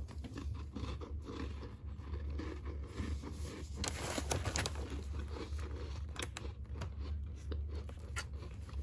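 A person biting and chewing a crunchy Gullon sugar-free chocolate chip biscuit close to the microphone: irregular crisp crunches, with a louder cluster about four seconds in.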